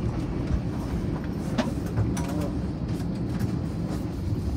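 Steady low rumble inside the cabin of a parked Airbus A321 airliner, with scattered light clicks and knocks.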